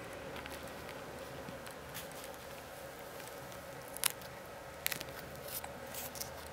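A cracker being bitten and chewed: a few short, crisp crunches about four seconds in and again near the end, over a faint steady hum.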